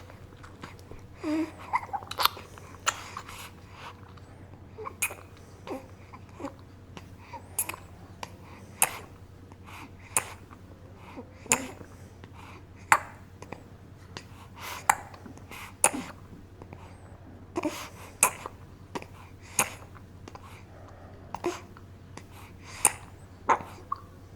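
Baby bottle-feeding sound effect: short sucking and swallowing clicks at irregular intervals, roughly one a second, with a few small throat noises between them.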